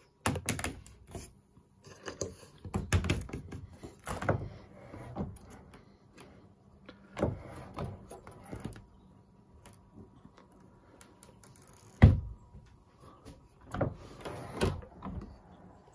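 Overhead deck hatch being handled: its plastic latch handles turned and the frame and sliding blind worked by hand, giving a string of clicks, knocks and short scrapes. One sharp knock about twelve seconds in is the loudest.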